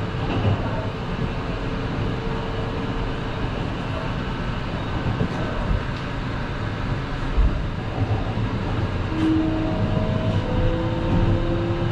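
Running noise of a Kintetsu 22000 series ACE limited express electric train heard from on board: a steady rumble of wheels on rails. A few thin whining tones come and go, rising slightly in pitch in the last few seconds.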